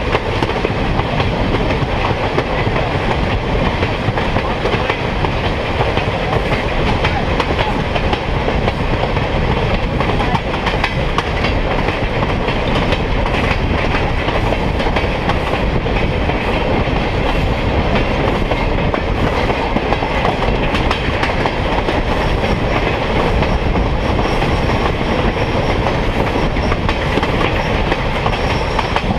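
Train rolling along the track, heard from aboard: a steady, loud rumble and clatter of wheels on rail. A faint high whine joins in about two-thirds of the way through.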